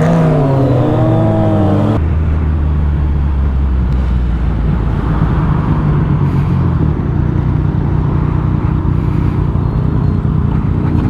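Motorcycle engine running under way, its pitch gliding for the first two seconds and then holding steadier at cruise, with wind rushing over the microphone.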